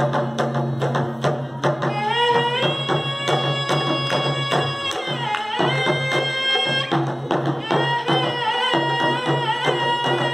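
Live Tamil folk music: a drum beating a quick rhythm under a steady low drone and a held, bending melody line, the instrumental opening before the singing starts.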